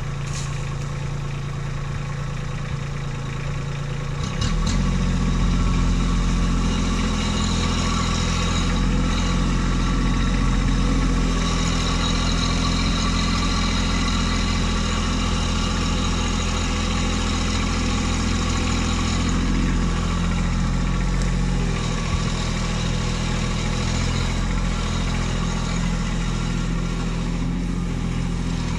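Kubota B2601 compact tractor's three-cylinder diesel engine idling, then throttled up about four and a half seconds in and running steadily at higher revs while the tractor works the grapple.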